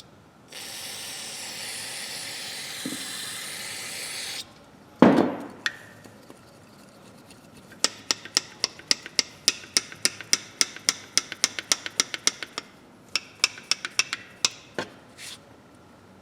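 An aerosol spray can hisses steadily for about four seconds, then there is one loud knock. After that comes a long run of sharp metal clicks, about four or five a second, with a short break, as old rusty pliers are worked open and shut to free the stiff joint.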